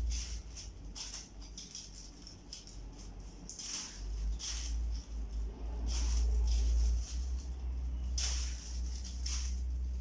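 Short scraping strokes at irregular gaps, from a squash being worked by hand as it is prepared for cooking, over a low steady rumble.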